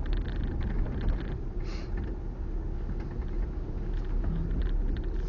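Car driving slowly, heard from inside the cabin: a steady low rumble of engine and road noise with scattered small knocks and rattles, and a brief hiss about two seconds in.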